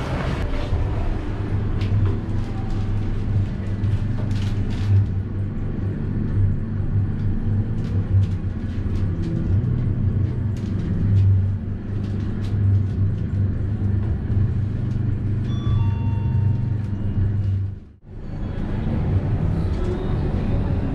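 Shopping-mall ambience: a steady low hum with faint background music playing. The sound drops out sharply for a moment near the end.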